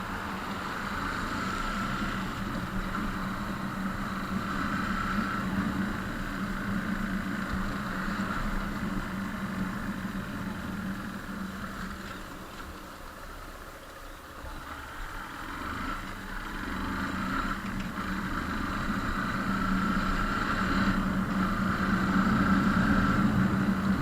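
A motor vehicle's engine running steadily over a hiss of noise. It fades to its quietest about midway, then builds up again and is loudest near the end.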